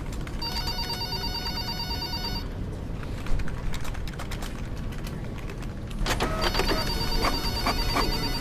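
A telephone ringing: two trilling rings of about two seconds each, about four seconds apart, over a steady low hum. Quick clicks join in with the second ring.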